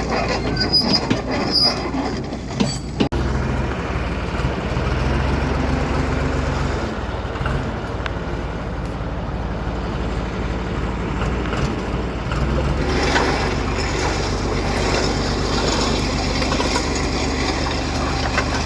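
An engine running steadily, a low constant hum heard across several abrupt edit cuts.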